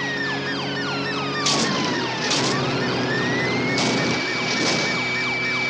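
Police siren wailing: one slow slide down in pitch and back up, over running car engines. Several short, sharp noises cut through it.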